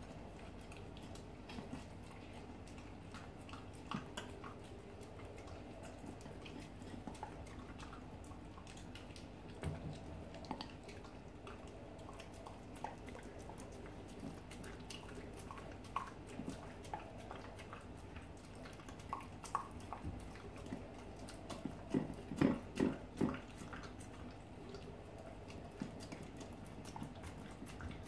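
A saluki eating soft cake off a ceramic plate: quiet chewing, licking and lip-smacking with scattered small clicks, and a short run of louder chews about two-thirds of the way through.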